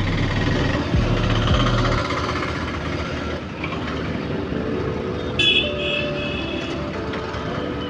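Busy street traffic heard from a moving scooter, with a vehicle horn giving two short beeps a little past halfway.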